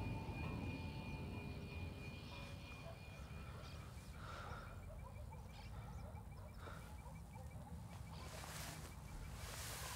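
Quiet woodland ambience: a steady low rumble with a faint, fast repeating tick, about five a second. Near the end come soft rustling sounds of brush and leaves.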